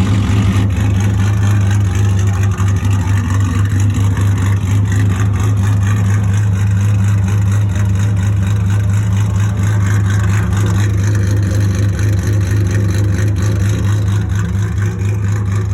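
Lexus IS350's 2GR-FSE V6, fitted with stage 3 camshafts, running steadily with an uneven, pulsing beat.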